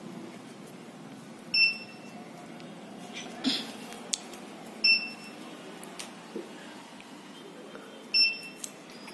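Short high-pitched electronic beeps from the game's beeper, three times about three seconds apart, with a brief rustle of hands on the box about three and a half seconds in and a few faint clicks.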